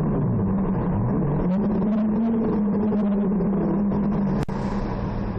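Ford Focus 1.8 four-cylinder engine with a sport air filter being revved: the revs fall away, climb back up and are held steady at a raised speed. A sharp click near the end.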